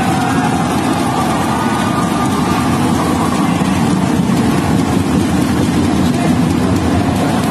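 Steady din of a large crowd in a packed indoor sports hall.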